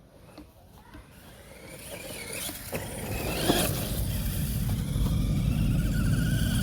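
Battery-electric FTX Outlaw RC car driving, its motor whine and tyre rumble growing louder as it comes closer and then running steady near the end.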